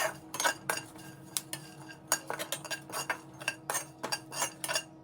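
Metal spoon clinking and scraping in a pan, stirring dry-roasted peanuts and whole spices, with many quick, irregular clinks.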